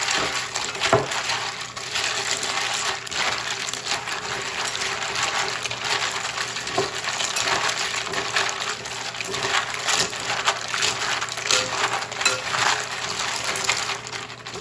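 Plastic keyboard keycaps being washed in water, sloshing with a steady stream of small clicks and clinks as they knock together, stopping abruptly at the end.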